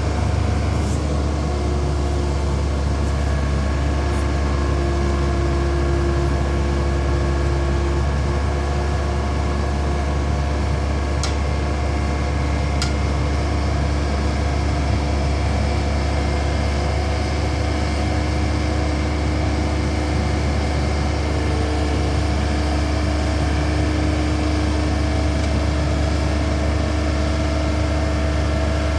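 Skid steer loader's engine running steadily, a low even drone that holds its pitch throughout. Two short clicks come about a second and a half apart a little before the middle.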